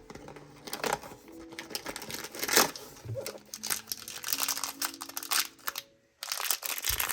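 Cardboard and packaging crinkling and rustling in irregular crackles as a small cardboard door on a collectible toy box is handled and opened, over soft background music with held notes. The sound drops out briefly about six seconds in.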